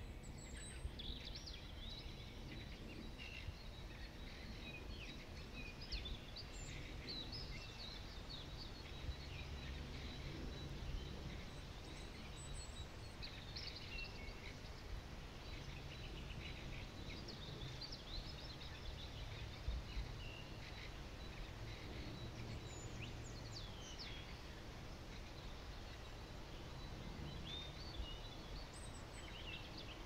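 Faint outdoor ambience: scattered short bird chirps and calls over a steady low rumble.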